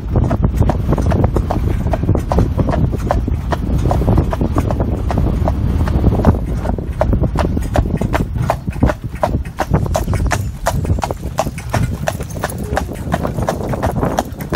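Hooves of a Gelderland horse clip-clopping in a steady, rapid rhythm as it is driven in harness, over a steady low rumble.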